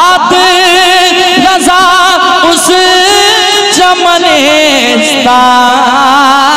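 A man singing a naat, an Urdu devotional praise song, into a microphone, drawing out long wavering notes with melodic ornaments.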